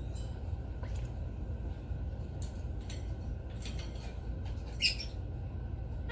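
African grey parrot making a few short, high squeaks and clicks, the loudest about five seconds in.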